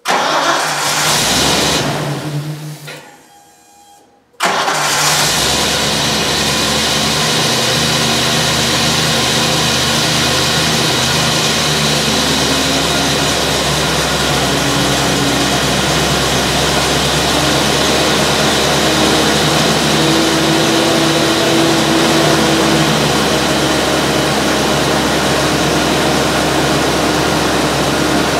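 Ford 429 (7.0 L) gas V8 in a 1994 Ford F700 truck being started: a loud burst of cranking and firing over the first couple of seconds, a brief dip, then from about four seconds in the engine runs steadily at a fast idle. That is its cold high idle, which does not come down until the engine warms up.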